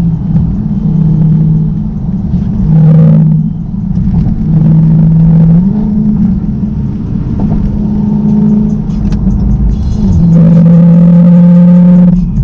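Dodge Scat Pack's V8 engine revved and held at steady speeds, its pitch stepping up and down between two levels several times, loudest about ten seconds in.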